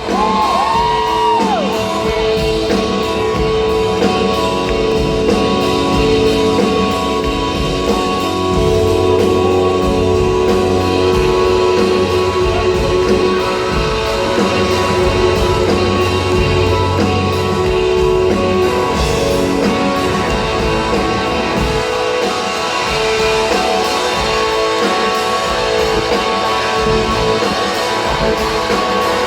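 Live rock band playing, with electric guitars strumming over sustained chords and a low bass note held through the middle.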